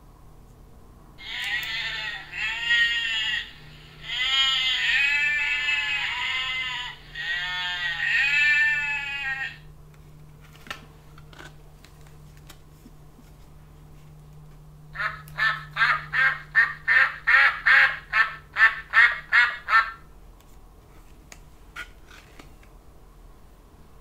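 Recorded sheep bleating, several wavering baas, played through a children's sound book's small speaker. About fifteen seconds in comes a rapid run of recorded duck quacks from the same book, about three a second for some five seconds.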